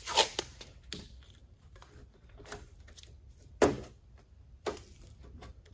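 Blue painter's tape pulled off the roll and torn in a few short rips, with the taps of gloved hands pressing it over a rubber weatherstrip seal.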